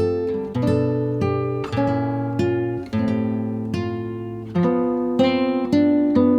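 Background music: strummed acoustic guitar chords, a new chord struck about every half second and left to ring.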